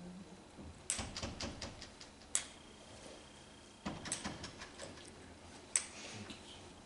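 Footsteps and a walking cane tapping on a stage floor: a scattering of sharp taps and knocks, the loudest about a second in, twice near the middle and once near the end. A faint high steady tone sounds for about a second and a half in the middle.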